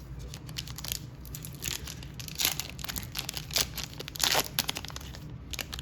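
Baseball trading cards being handled and flipped through by hand: irregular short rustling swishes of card stock sliding, with louder ones about two and a half and four and a half seconds in.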